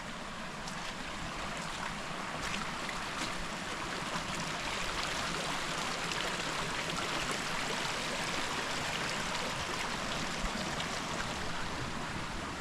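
Creek water flowing over rocks, a steady rushing babble that swells a little in the middle.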